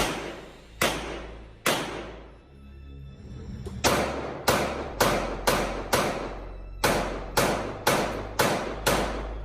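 Handgun shots fired in strings: three shots, a pause of about two seconds, then about eleven shots at an even pace of roughly two a second, each with a short echoing tail.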